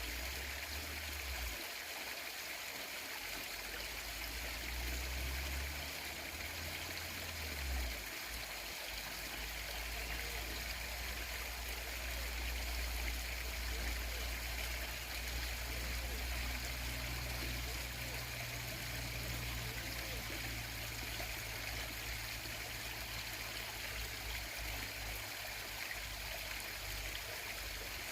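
Steady rushing of a stream flowing over rocks, with a low rumble coming and going underneath.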